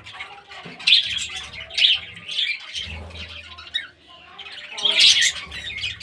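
Pet budgerigars chattering in quick runs with sharp squawks, loudest about a second in and again near the end.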